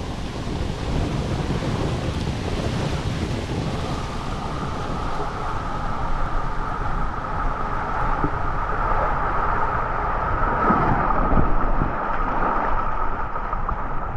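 Rushing water and an inflatable single tube rumbling and sliding down an enclosed waterslide flume, with wind on the microphone. A steady high hum joins the rush about four seconds in.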